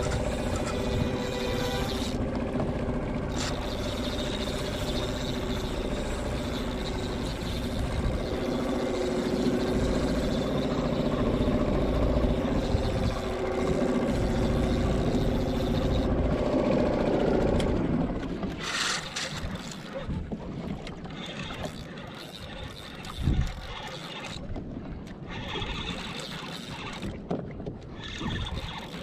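Suzuki 2.5 hp four-stroke outboard running steadily at trolling speed, then slowing and cutting out about two-thirds of the way through. After it stops there are only quieter, uneven sounds and one short knock.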